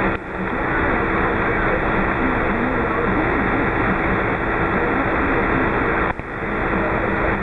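Shortwave transceiver receiving on 27.520 MHz: loud steady hiss and static with a weak distant station's voice buried in it, too faint to make out. The noise dips briefly just after the start and again about six seconds in.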